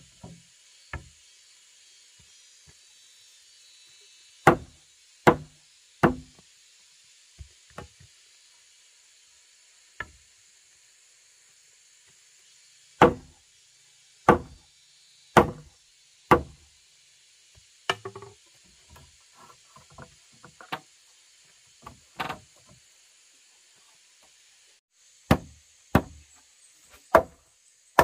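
Sledgehammer blows on timber, driving a wooden crossbeam into the mortise of a house-frame post. Sharp knocks come in groups: three about a second apart, a pause, four more, then scattered single blows and three more near the end, with quieter knocks of wood being handled in between.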